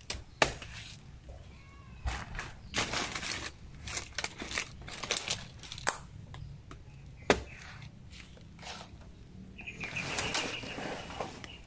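A few sharp knocks, three standing out, with rustling of dry leaves and brush in between. Near the end a faint high steady tone sounds over a longer stretch of rustling.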